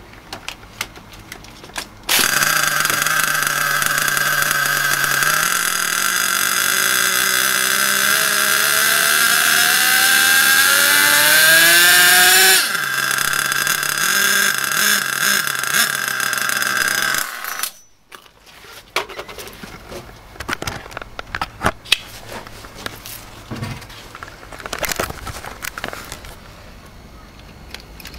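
Small nitro engine of an HPI Savage X RC truck starting about two seconds in with a loud, high buzz, driving the wheels on a roller dyno. Its pitch climbs steadily for about six seconds under throttle, drops sharply back to a lower steady run, and the engine cuts off a few seconds later; light clicks and knocks follow.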